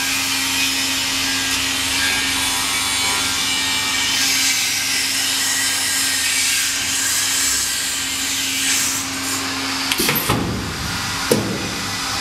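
Grinding head of a motorised grinding machine running with a steady hum, its abrasive rubbing as it works back and forth across the workpiece. Two sharp knocks come about ten and eleven seconds in.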